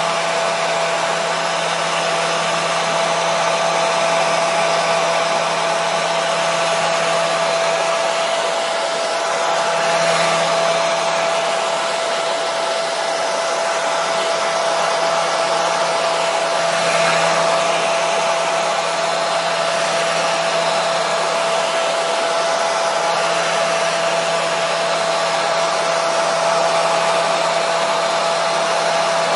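Electric hair dryer running continuously: a steady airy rush with a strong fixed motor whine. The level swells slightly twice but never stops.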